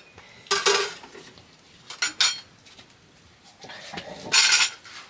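Dishes and utensils clinking and clattering in three short bursts.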